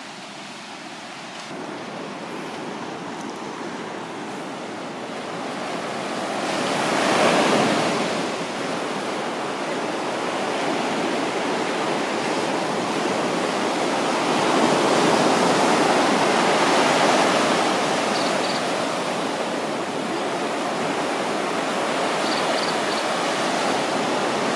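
Ocean surf washing up a sandy beach among rocks, a steady rushing wash that swells to its loudest about seven seconds in and again around fifteen seconds.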